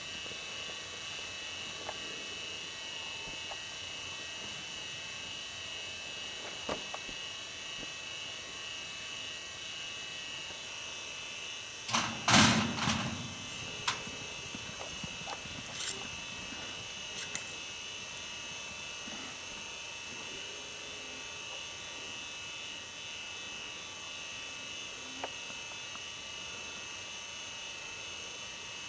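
Steady high whine and hiss throughout, with one loud, rough burst about twelve seconds in that lasts roughly a second, and a few faint knocks scattered through the rest.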